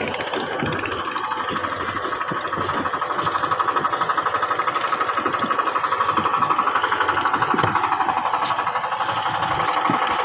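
Yamaha 15 hp outboard motor running steadily, pushing a boat loaded with coconuts, with a rapid even pulse that grows a little louder about three seconds in.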